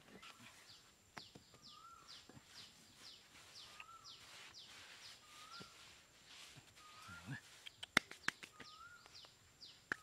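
A bird calling over and over, a short rising whistle repeated about every second and a half, with fainter falling high notes between. A few sharp clicks and taps break in, the loudest about eight seconds in.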